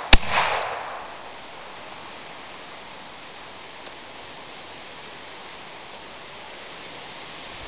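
A single loud gunshot from a shoulder-fired long gun, its echo dying away within about a second, followed by a steady outdoor hiss.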